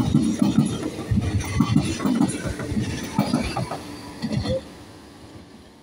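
Double-deck Transilien commuter train passing close by, its wheels clattering in a rapid run of heavy thumps with rumble. The noise drops away after about four and a half seconds as the last car goes by and the train recedes.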